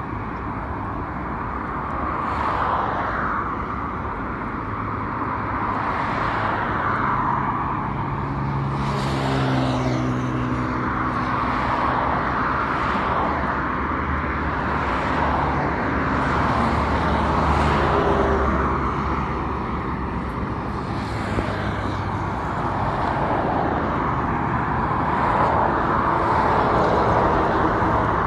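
Steady highway traffic: cars passing one after another, their tyre hum swelling and fading every few seconds, with a deeper engine hum from a passing vehicle through the middle.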